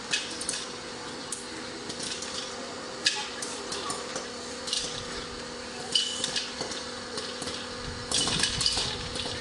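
Popcorn machine running with a steady hum while scattered kernels pop, giving irregular sharp clicks and clinks, a little denser near the end.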